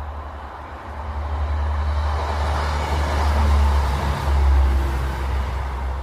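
A road vehicle passing by: a deep rumble with engine and tyre noise that swells to a peak about four seconds in, then fades.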